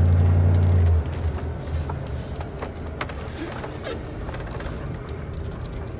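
1994 Ford F-350's engine running with a steady low hum, which stops abruptly about a second in. After that come faint clicks and rustling inside the cab.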